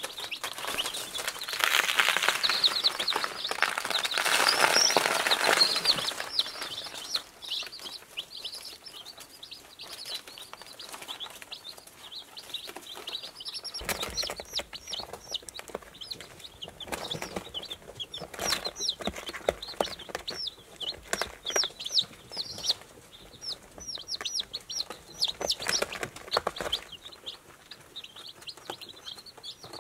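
A brood of two-day-old Icelandic chicks peeping: many short, high chirps, some rising and some falling, overlapping throughout. A loud rustle of paper and handling lies under them for the first few seconds.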